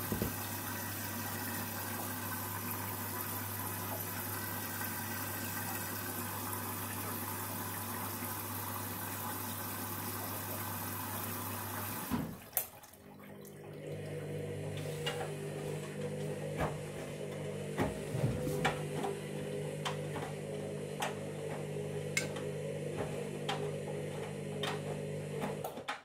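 Candy Grand'O Vita washing machine at the start of a synthetics 40 cycle: a steady rush of water filling the machine for about twelve seconds, then the inflow stops and a steady motor hum takes over, with scattered short clicks and splashes.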